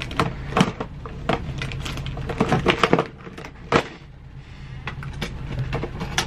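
Rummaging through a box of makeup supplies: a string of irregular clicks and clatters as items knock together, over a steady low hum.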